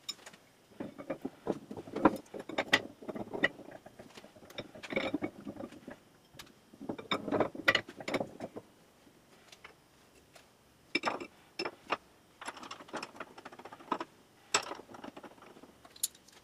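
Cast-iron woodworking vise being reassembled by hand: metal clicking and rattling in several uneven bursts as its threaded steel screw and sliding parts are fitted together.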